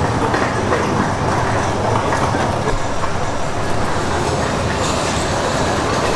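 Steady, dense background noise of a busy market food stall, a continuous rumble and bustle with faint voices mixed in.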